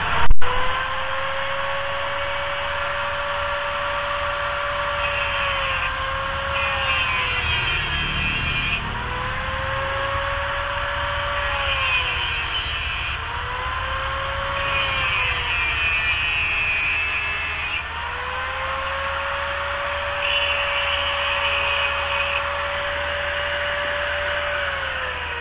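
Electric angle grinder cutting metal in repeated passes: the motor's whine sags in pitch each time the disc bites, with a gritty grinding hiss, and it recovers between cuts. A sudden loud bang comes just after the start, and near the end the grinder is switched off and winds down with a falling whine.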